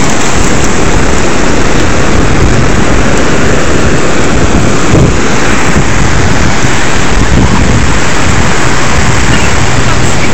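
Loud steady roar of breaking ocean surf and wind on the microphone.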